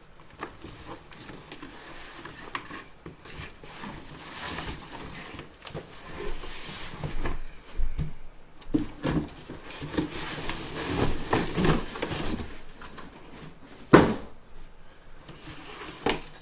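Cardboard boxes being worked out of a larger cardboard shipping case: irregular scraping, sliding and rustling of cardboard, with a single sharp knock near the end.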